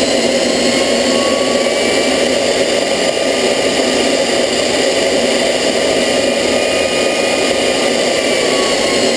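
Homemade turbojet engine built from a turbocharger, running loud and steady: a dense rush of noise with a high whine on top. The whine's pitch begins to fall near the end.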